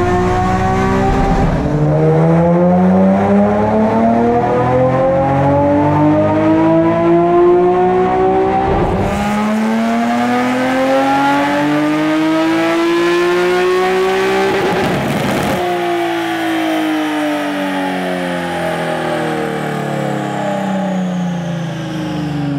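Nissan 370Z's 3.7-litre VQ37 V6, breathing through long-tube equal-length headers and a large-bore catback, revving hard under full throttle on a chassis dyno. The exhaust note climbs steeply in pitch in long pulls, broken off sharply about 1.5 s and 9 s in, then at about 15 s the revs drop and the note winds steadily down.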